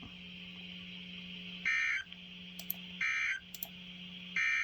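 Emergency Alert System digital data bursts: three short, high, screechy bursts about a second and a half apart, with a low electronic buzz in the gaps between them.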